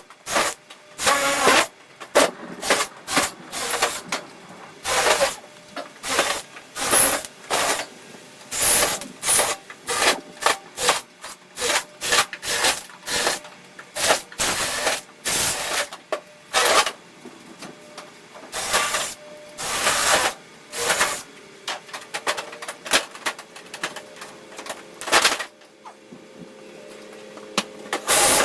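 An irregular run of short scraping and clattering handling noises, roughly one to three a second, with a faint steady hum in the last few seconds.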